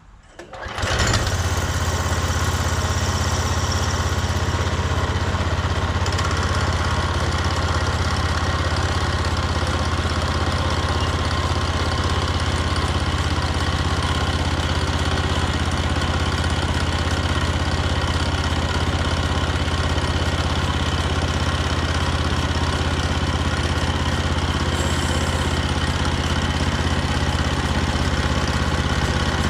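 Hudson HFE30 bandsaw sawmill's engine starting about a second in, then running steadily.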